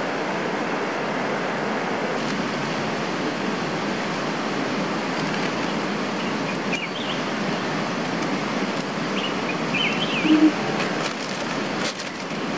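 Mountain stream rushing over boulders and a low weir, a steady wash of water noise, with a few short bird chirps about seven seconds in and again near ten seconds.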